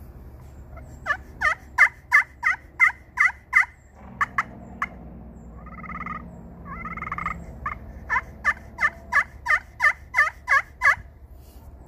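Turkey pot call with an aluminum surface, played with a solid acrylic striker with a snakewood top, imitating a hen turkey. It gives a run of about eight yelps, three quick clucks, two short purrs, then a second, longer run of about eleven yelps. The call plays well on aluminum.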